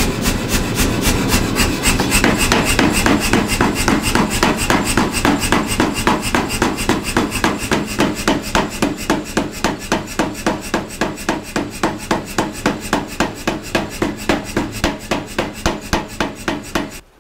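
Say-Mak power hammer with drawing dies striking red-hot leaf-spring steel in a rapid, even run of blows, several a second, drawing out a blade edgewise. The hammering stops abruptly near the end.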